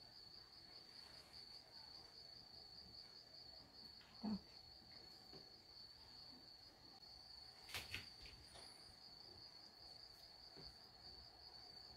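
A cricket trilling steadily on one high pitch against near quiet, with a short soft knock about four seconds in and a sharp click near eight seconds.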